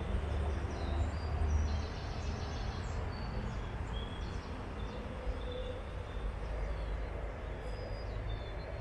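Outdoor ambience: a steady low rumble with short, high bird chirps now and then.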